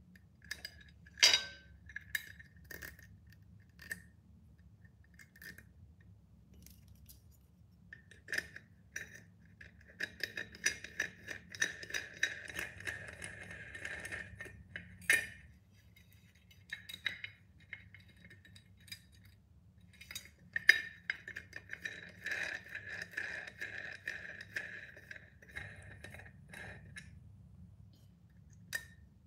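Small metal fittings clinking and scraping against a tempered glass pot lid as its handle is fitted by hand: scattered sharp clicks and taps, with two longer stretches of rattling and scraping, the glass giving a faint ring.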